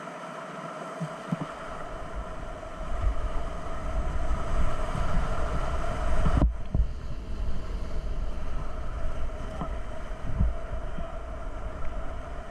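Whitewater rapids rushing loudly around a kayak, heard close up, with low thumps of water and the paddle striking the boat. About halfway through, the higher hiss cuts out suddenly and then returns more muffled.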